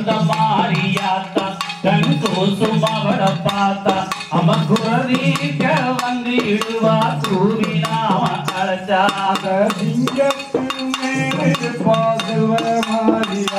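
Live valli kummi folk dance music: a wavering melody over a fast, steady rhythm of sharp percussive clicks and claps.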